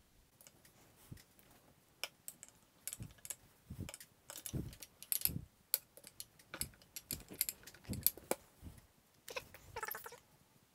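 Irregular clicks, taps and small knocks as a small goto motor and its bracket are handled and fitted onto an EQ5 telescope mount.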